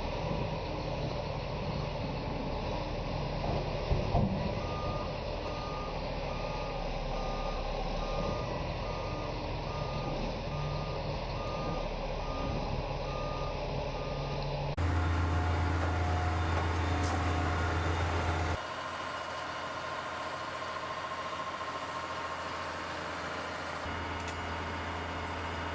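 Heavy equipment's reversing alarm beeping at an even pace, about once a second, over a steady engine drone. After about fifteen seconds the sound cuts to a louder low engine hum, then to steady machine running noise.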